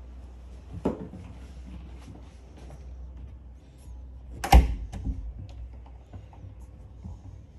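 Wood-veneer interior door handled as it opens: a sharp click about a second in, then the loudest knock about four and a half seconds in, followed by a few lighter knocks, over a low steady rumble.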